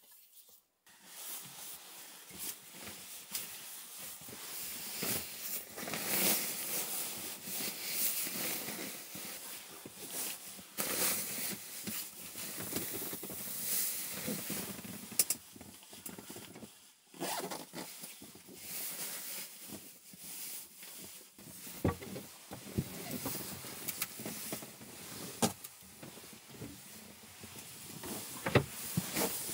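Rustling of fabric being handled: a puffy down jacket and a padded cushion or bedding being lifted and moved, with a few light knocks.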